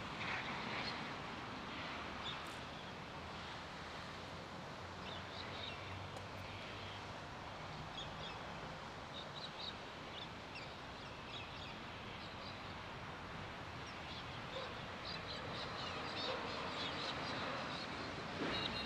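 Small birds chirping in short, scattered calls over a steady outdoor background hiss, the background growing a little louder near the end.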